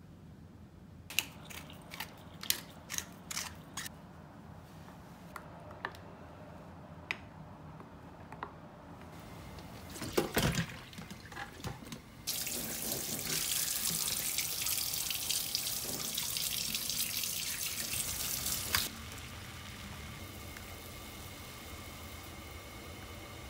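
Kitchen tap running hard into a stainless steel sink for about six seconds, then shut off suddenly, as chicken pieces are rinsed in a colander. Before it, light clicks of a wooden spoon against a glass mixing bowl and one loud clatter; after it, a steady quieter hum.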